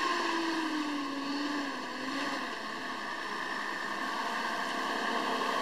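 Nissan Patrol 4x4 engine running as the vehicle crawls slowly through tall grass, a steady drone whose pitch sinks a little over the first two seconds.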